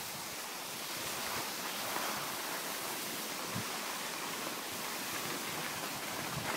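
Steady rushing hiss of wind on a phone's microphone while skiing downhill over packed snow.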